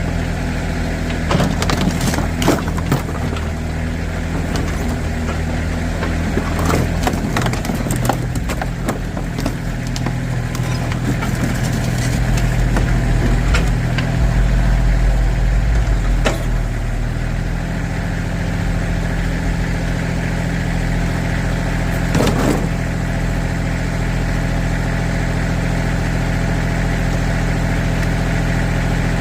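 Backhoe engine running steadily, working harder for a few seconds around the middle, with scattered clanks and knocks from the bucket against debris.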